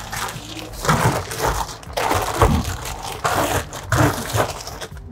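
Bulky life jackets in plastic bags crinkling and rustling as they are pushed and crammed into a fibreglass boat's storage locker, in fits and starts, with a few dull knocks.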